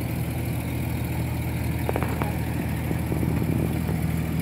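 Jeep Grand Cherokee ZJ's engine running at low, steady revs as it crawls slowly over rocky ground, with a couple of brief clicks about two seconds in.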